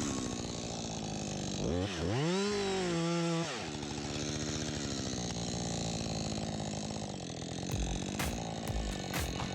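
Chainsaw engine running, revved up and back down about two seconds in, then running steadily again.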